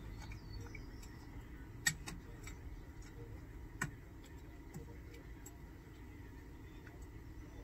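A few light clicks and taps from small kitchen items being handled, the sharpest about two seconds in and again near four seconds, over a low steady hum.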